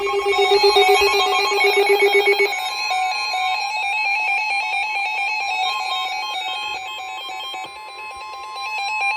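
Emergency alert broadcast tones that open a severe thunderstorm warning: a steady electronic tone with rapidly stepping, chirping tones layered over it. A pulsing lower tone drops out about two and a half seconds in, and the tones cut off abruptly at the end.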